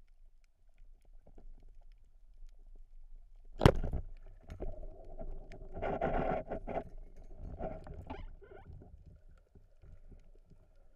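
A band-powered Pathos speargun fires underwater with one sharp crack a little under four seconds in. Several seconds of knocking and rattling follow as the speared mullet is brought in by hand, then die away.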